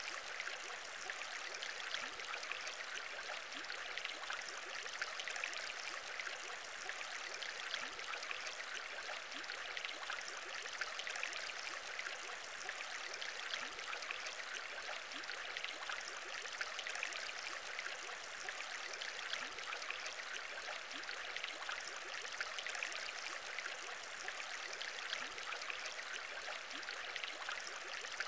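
Aquarium bubbles: a steady fizz of many small bubbles rising and popping in water.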